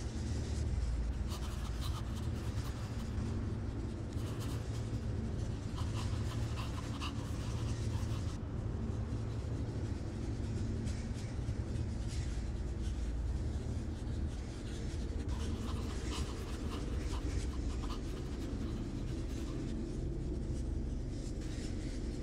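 A steady low rumble with scratchy crackling that comes and goes in stretches of a couple of seconds, several times.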